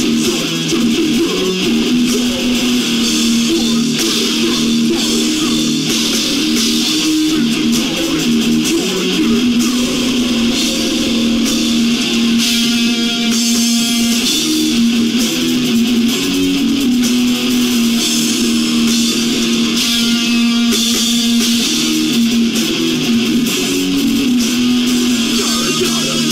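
Heavy metal band playing with distorted electric guitars and bass, holding long notes that change pitch every few seconds.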